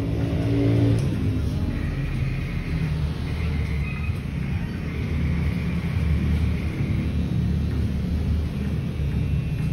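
Electric hair clippers buzzing steadily as they cut hair, over a low rumble, with a faint high whine coming and going in the middle.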